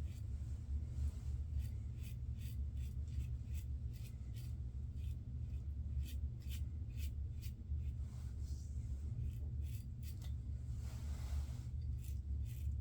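A razor scraping through lathered stubble in short, repeated strokes, about two a second, with one longer stroke near the end, over a steady low hum.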